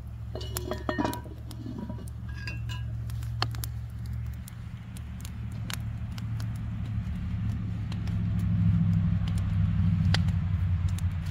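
Swiss fire log burning, with scattered sharp clicks and pops over a steady low rumble that grows louder in the second half. There is a brighter clink near the end, around when the cast iron skillet of sausages sits on the log.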